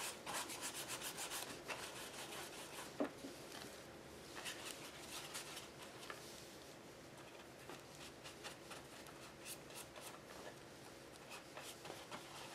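Faint brushing and rubbing: a paintbrush works gel medium over collage tissue paper on a journal page, and fingers smooth the tissue down. A quick run of strokes, about seven a second, comes first, followed by scattered strokes.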